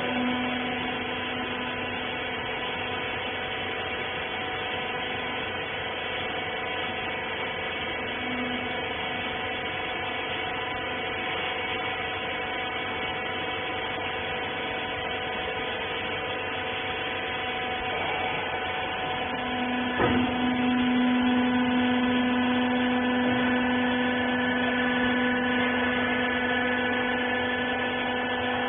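Industrial rag baler's hydraulic pump motor running with a steady, pitched hum. About twenty seconds in there is a sharp click, and after it the hum grows louder.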